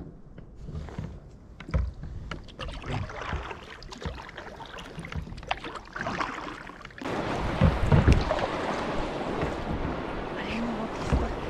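Water splashing and lapping around a sea kayak, with scattered small splashes and knocks. About seven seconds in it jumps suddenly to a louder, steady rush of choppier water.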